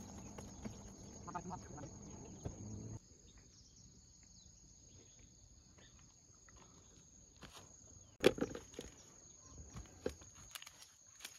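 Outdoor lakeshore ambience: insects make a steady high, thin drone throughout. Footsteps scuff and crunch on the gravelly bank, with one sharp knock about eight seconds in followed by scattered crunching.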